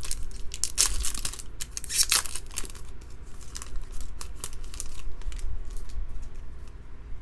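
Shiny foil wrapper of a trading-card pack crinkling and tearing as it is pulled open by hand. The crinkling is densest in the first three seconds, then thins to scattered rustles.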